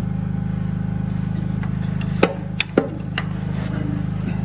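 A few sharp metal clinks and knocks, about two to three seconds in, of hand tools and parts being handled while unbolting an old engine, over a steady low hum.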